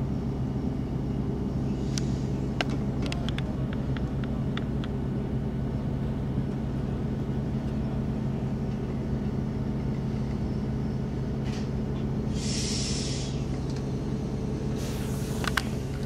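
Inside a moving train: the steady low rumble and drone of the train running, with a run of sharp clicks from the wheels over the track a couple of seconds in and a short hiss about three-quarters of the way through.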